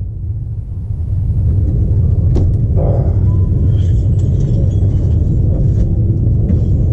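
Wind buffeting the camera's microphone on an open boat: a steady, loud low rumble.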